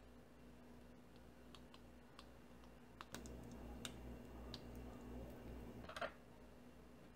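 Faint clicks and squelches from a plastic Heinz yellow mustard squeeze bottle as mustard is squirted onto toast. The sounds grow busier about three seconds in and end in a short crackling sputter near the six-second mark.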